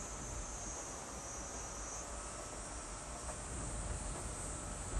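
Insects calling in a steady high-pitched drone, one strand of which drops out about two seconds in while another carries on, over a low rumble of wind on the microphone.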